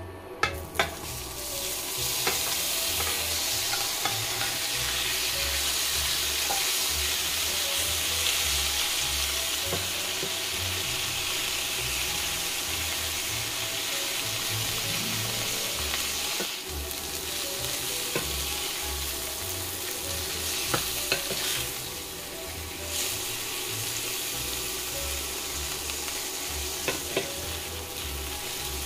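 Garlic frying in butter and vegetable oil in a nonstick pan, a steady sizzle, stirred with a silicone spatula that clicks lightly against the pan a few times.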